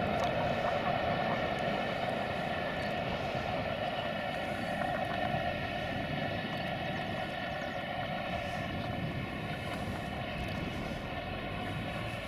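A steady mechanical engine drone, a stack of even tones over a rushing bed, its pitch sinking slightly over the seconds.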